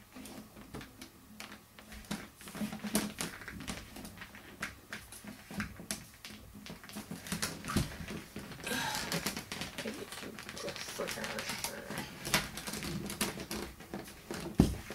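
Resin ball-jointed doll being handled and bent into a kneeling pose on a tabletop: its hard parts click and knock against each other and the table, with a stretch of rubbing and handling noise in the middle and a louder knock just before the end.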